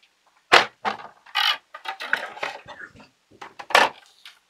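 Plastic case of a toy electronic pinball game being handled and worked on: a run of sharp clicks and knocks, with a short scrape about a second and a half in.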